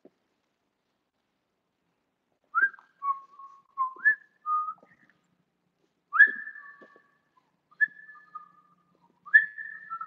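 A person whistling a melody: clear held notes that step up and down in pitch, each starting with a quick upward slide, with short gaps between phrases, beginning about two and a half seconds in.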